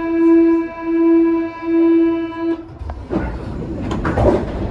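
Paris Métro MP73 door-closing warning buzzer sounding as one steady pitched tone in four even pulses, the signal that the doors are about to shut. It is followed by a sharp clunk and a noisy mechanical rattle with knocks as the train's sliding doors close.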